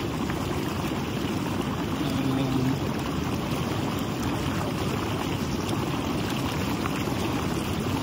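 Jacuzzi water bubbling and churning in a steady rush.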